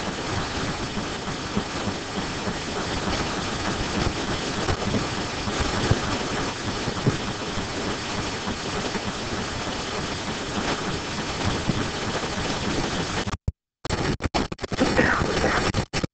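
Steady background noise with no clear source and no speech. Near the end it cuts out to silence in several short gaps.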